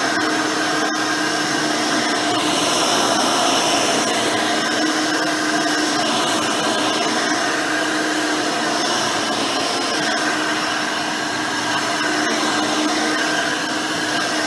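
Hoover Elite 600 upright vacuum, refitted with a modern 7-amp motor and 20-blade fan, running steadily as it cleans, with an even motor whine over the rush of air.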